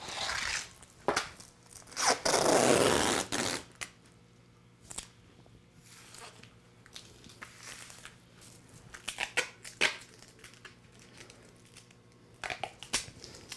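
Duct tape being pulled off the roll in a long rip, twice in the first few seconds, the second one longer and louder. After that come softer rubbing and crackling as the tape is smoothed down by hand onto the rubber car-mat strips.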